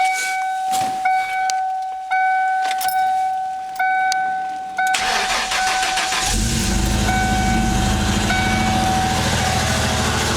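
The car's warning chime dings repeatedly, then about five seconds in the starter cranks briefly and the 1994 Ford Mustang's 3.8L V6 catches and settles into idle. The engine has a misfire.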